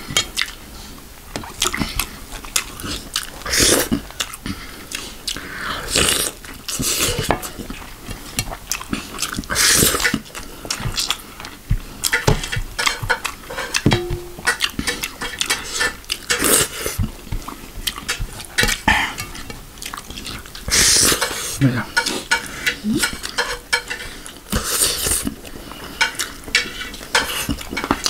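Close-miked eating sounds: wet chewing and lip smacking, with fingers scraping and scooping rice on a steel plate, in many short irregular clicks and smacks.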